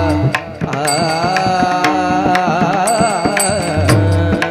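Marathi Warkari devotional song (abhang): a singer holds long, wavering notes over ringing tal hand cymbals struck in a steady rhythm and deep pakhawaj drum strokes.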